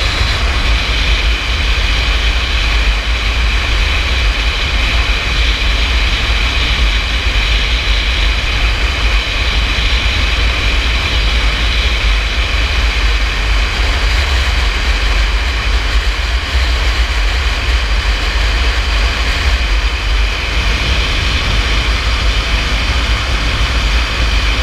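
Dual-sport motorcycle cruising at a steady speed, its engine running evenly under heavy wind rumble on the action camera's microphone.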